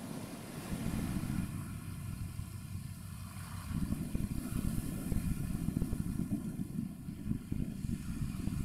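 Low, uneven rumble of wind buffeting the microphone, growing louder and gustier about four seconds in, over a faint distant engine drone.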